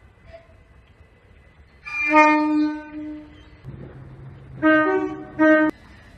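Train horn sounding: one long blast about two seconds in, then two short blasts near the end, the last cut off abruptly. A low steady hum runs under the second pair.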